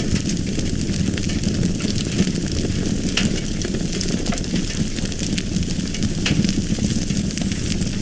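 Fire burning, with a steady low rumble and frequent sharp crackles and pops.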